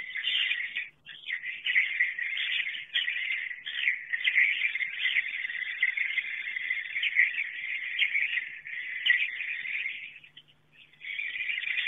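Edible-nest swiftlet roosting calls, the 'inap malam' night-roost call played in swiftlet houses to draw the birds in to roost: a dense, continuous chatter of high chirps. It breaks off briefly about a second in and again for about a second near the end.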